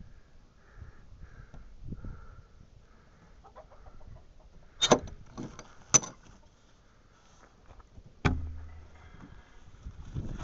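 Steel barrel-bolt latch on a wooden pen door worked by hand: two sharp metallic clacks about a second apart near the middle, then a click and a short low knock about eight seconds in. Faint hen clucking in the first few seconds.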